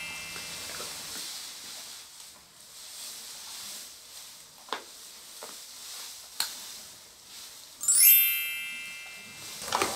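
A bright ringing chime sound effect with a rising sparkle about eight seconds in. Before it, faint rustling with a couple of sharp snaps as young giant pandas tug at bamboo stalks.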